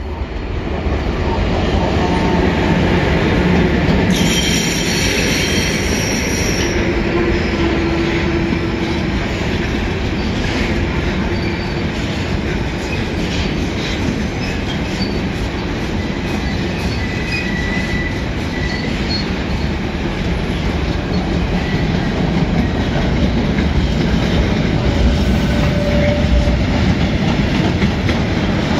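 Train running along the track: a steady loud rumble of wheels on rails, with a brief high wheel squeal about four seconds in.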